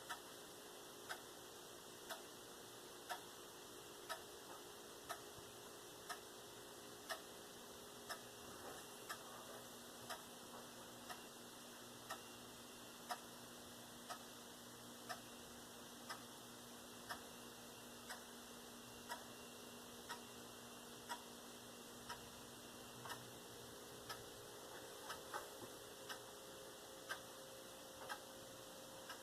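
Faint, steady ticking of a clock, about one tick a second, over a low room hum.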